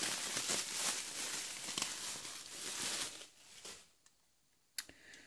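Bubble wrap crinkling and rustling as it is handled and pulled open, fading out after about three seconds. A single sharp click sounds near the end.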